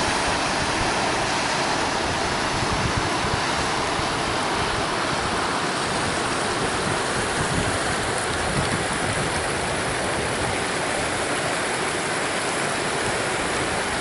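Steady rush of a shallow river running over stone riffles below a small waterfall.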